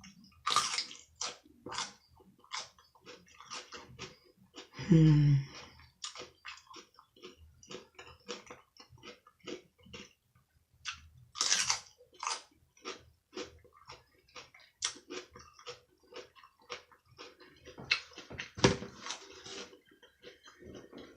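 Person chewing and biting food close to the microphone: a dense run of short, irregular wet mouth clicks and crunches, with a few louder bites, and a hummed 'mm' about five seconds in.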